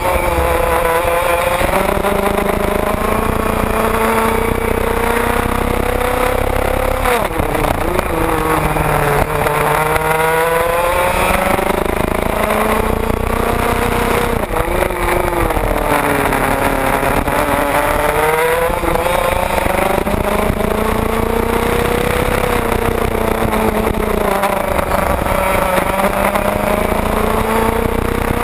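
Onboard sound of an IAME 125cc two-stroke racing kart engine at full race pace, its pitch climbing steadily along each straight and falling off sharply into each corner, over and over.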